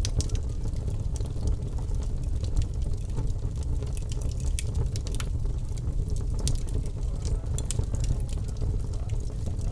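Wood log fire crackling in a fireplace: irregular sharp pops and snaps over a steady low rumble.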